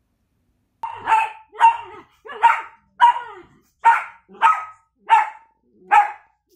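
Miniature dachshund barking repeatedly at a newly arrived puppy, about eight sharp barks at a steady pace beginning about a second in: the resident dog's wary barking at the newcomer.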